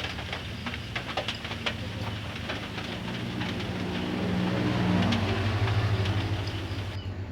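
A motor vehicle's engine hum that swells to its loudest past the middle and then fades, as a vehicle passing by. A few sharp clicks come in the first couple of seconds.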